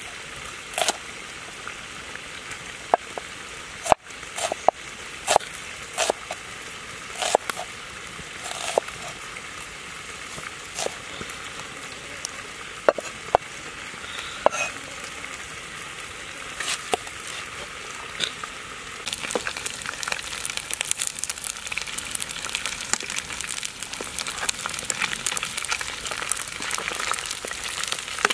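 A large knife slicing a red onion, striking a wooden chopping board in separate sharp knocks about once or twice a second. Near the end, pieces of crocodile take over, sizzling and crackling as they fry in hot oil in a wok.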